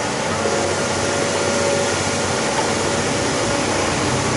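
Excavator's diesel engine running steadily, a dense, even noise with a faint steady whine that comes in about half a second in and fades near the end.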